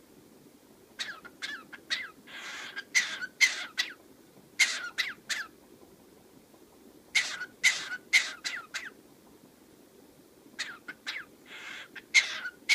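Pet cockatiel calling in four bouts of short, sharp chirps mixed with raspy, cough-like sounds, with quiet pauses between the bouts.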